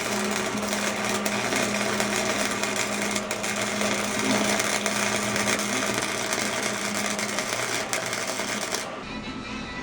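Metalworking on the steel boxing plates of a truck frame: a loud, harsh crackling noise with a steady low hum. The hum stops shortly before the end, and the noise cuts off suddenly near the end.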